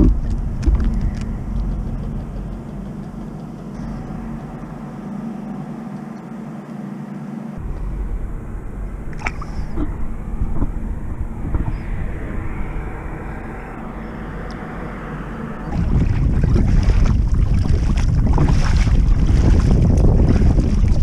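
Outdoor ambience on a kayak at sea: wind on the microphone and water noise around the hull. About three-quarters of the way through it gets louder as the kayak is being paddled.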